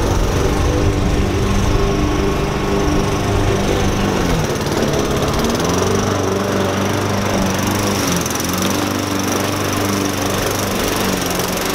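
Small gasoline engine of a walk-behind lawn mower running steadily, its note dipping briefly and recovering about halfway through.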